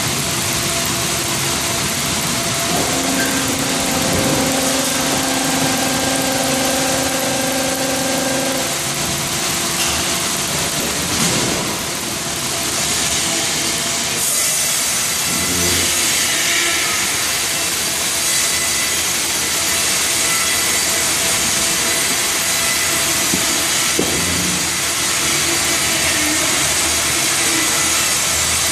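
Sawmill cutting line running: band saw, circular saws and roller conveyors making a loud, steady machinery din, with a steady hum from a few seconds in to about a third of the way through. The sound changes about halfway through.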